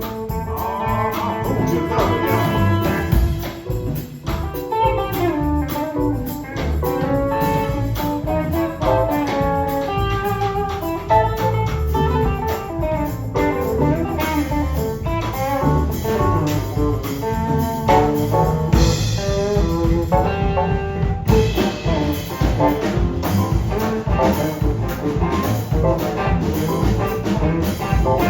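Blues band playing an instrumental break live: a guitar picks out a run of melody over bass and drums, with no singing.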